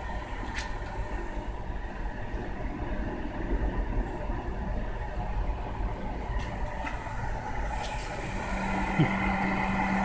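GE Spacemaker JVM230B microwave oven running with its case off: a steady low rumble of its fan, with the high-voltage transformer's hum coming in strongly near the end and a single click about nine seconds in.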